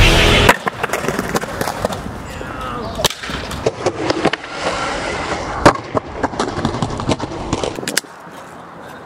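Skateboard wheels rolling, with repeated sharp clacks of the board hitting the ground; the loudest clack comes a little past halfway. Loud music cuts off about half a second in, and the rolling dies away near the end.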